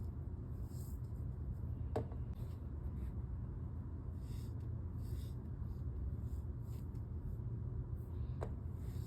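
Kinetic sand being squished and crumbled by hand, giving short, soft, grainy crackles that come and go. There are two sharp clicks, about two seconds in and near the end, over a steady low rumble.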